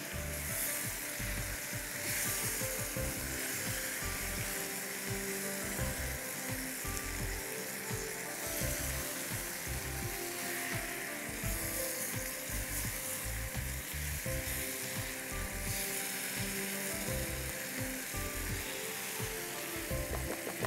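Chicken pieces and puréed tomato frying in a pan, sizzling steadily as they are stirred with a wooden spatula.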